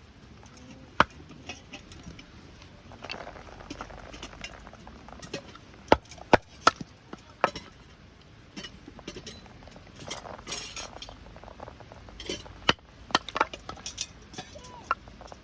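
Camp cookware and utensils clinking and knocking, a run of irregular sharp clicks, the loudest about a second in and three close together around six seconds in.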